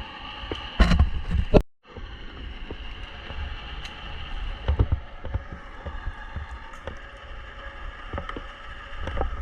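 Wind rumbling on a GoPro microphone over a steady mechanical drone, with scattered knocks and handling bumps. The loudest bump comes about a second in, and the sound cuts out briefly just after it.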